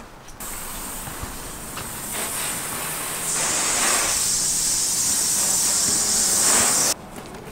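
Garden hose spray wand spraying water onto a car's body. It starts suddenly, gets louder about three seconds in and cuts off sharply near the end.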